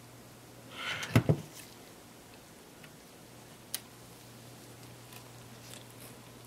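Handling noise from lifting the back cover off a Canon EOS 60D: a brief rustle and a sharp plastic knock about a second in, then a light click near four seconds, over faint room hum.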